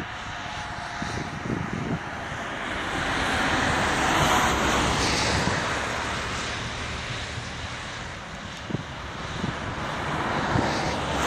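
Narrow-gauge Döllnitzbahn train approaching, heard as a steady distant rumble and hiss that swells about four seconds in and again near the end.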